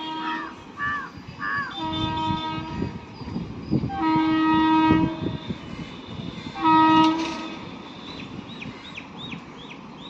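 Indian Railways WAP7 electric locomotive's horn blown three times, the middle blast the longest, as an express passes through the station, over the rumble and clatter of the train.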